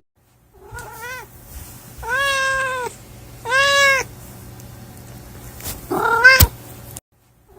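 A cat meowing four times: a faint short meow about a second in, two loud drawn-out meows, then a last one near the end cut off by a sharp click.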